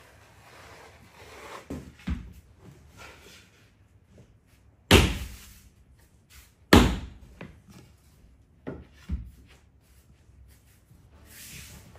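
Hard knocks on engineered wood flooring: two loud ones about two seconds apart, with lighter knocks before and after.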